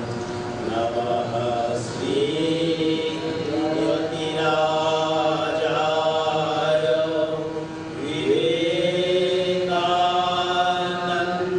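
A group of men chanting a devotional song together, on long held notes that slide up into each new phrase, with a harmonium sustaining chords underneath.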